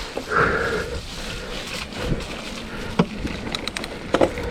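Electric mountain bike being ridden over a snowy trail: tyre and trail noise with scattered clicks and short rattles from the bike.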